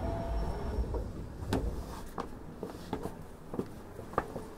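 Inside a Hankyu 1000 series train car halted at a station: scattered knocks and clicks over a low rumble, with a faint steady tone in the first half-second.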